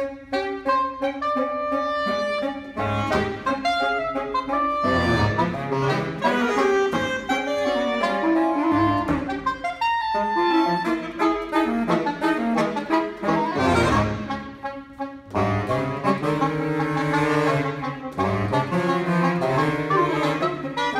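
Saxophone quartet of soprano, alto, tenor and baritone saxophones playing a contemporary concert piece live, the baritone giving low repeated notes beneath the upper voices.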